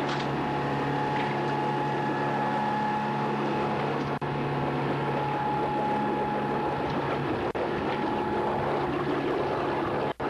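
A 29 ft Paceship sailing yacht's engine running steadily under way: an even, low drone with a steady hum above it.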